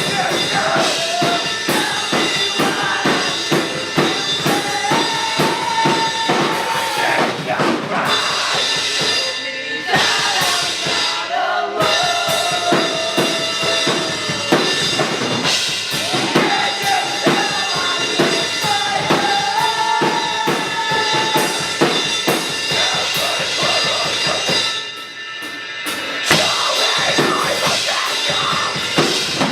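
Metal band playing live: fast, dense drumming with bass drum and snare under a loud melodic line. About 25 seconds in the band thins out briefly, then crashes back in.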